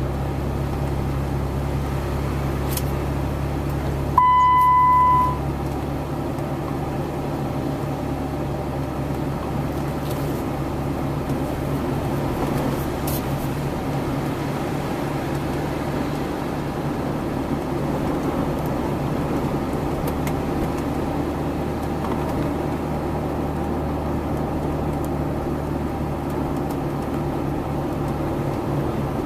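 Steady low mechanical hum, with a single electronic beep lasting about a second a little over four seconds in.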